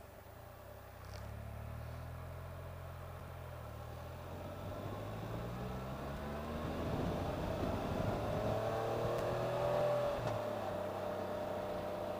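Can-Am Spyder RT three-wheeled motorcycle's engine running, then accelerating, its pitch rising steadily for several seconds before easing off near the end.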